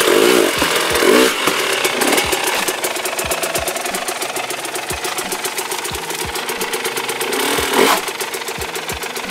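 GasGas dirt bike engine idling, with short throttle blips in the first second and again about eight seconds in.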